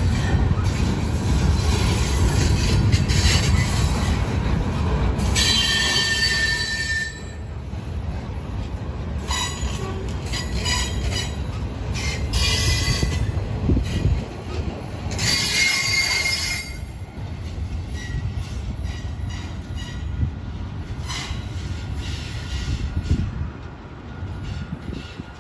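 Freight cars rolling past close by, a steady heavy rumble of steel wheels on rail with several shrill bursts of wheel squeal over the first two-thirds. The rumble eases as the last cars move away near the end.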